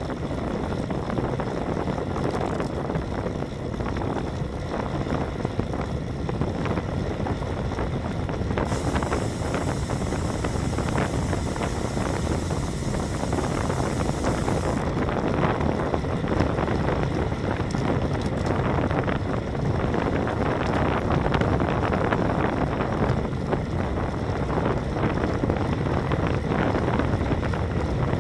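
Wind buffeting the microphone of a Cycliq Fly12 CE camera-light on a road bike moving at about 35–40 km/h, with tyre noise on the asphalt beneath it. For about six seconds in the middle, a higher hiss joins in.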